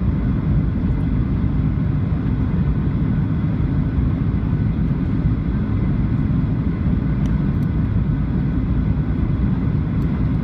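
Steady cabin noise inside a Boeing 737-700 in flight: an even, low rumble of engines and airflow with no change in level.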